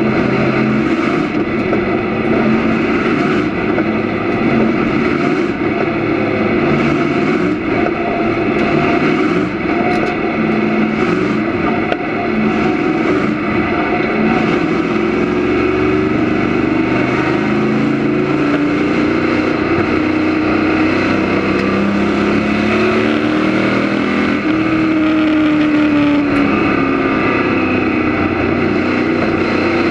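Limited Sportsman stock car's engine heard loud from inside the cockpit, running at speed on track, its pitch rising and falling as the car goes around the oval.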